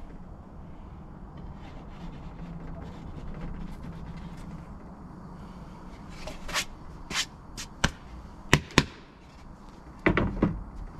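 A wooden pizza peel knocking against the oven mouth and a plywood table as a pizza is launched and the peel set down: a string of sharp knocks in the second half, the loudest two close together, then a short clatter near the end, over a steady low rumble.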